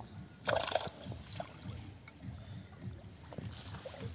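Shallow muddy water sloshing and splashing as a bamboo fish trap is worked by hand, with one louder splash about half a second in.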